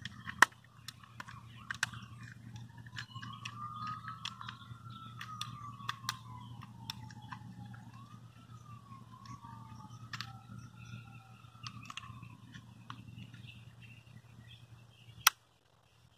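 Light plastic clicks and taps as the pieces of a car's power window switch housing are handled and pressed together, with a sharp snap near the end. A faint siren wails slowly up and down twice over a steady low hum, which cuts off suddenly right after the snap.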